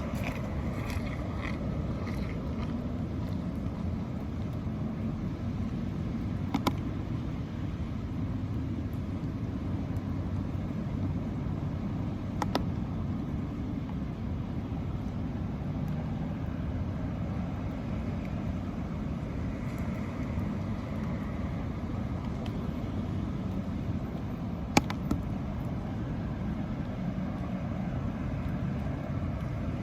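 Steady low outdoor rumble with no voice, broken by three short, sharp clicks or taps spread through it.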